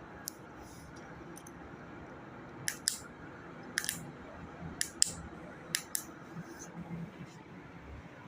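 18-inch mini ceiling fan running with a low, steady hum, broken by several sharp clicks at uneven intervals.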